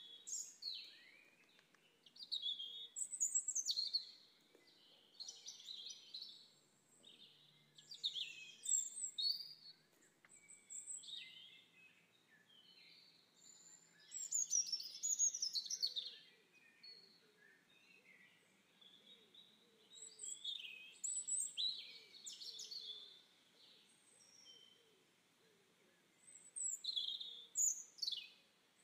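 Wild birds singing and chirping: bright, quick sweeping notes in short phrases every second or two.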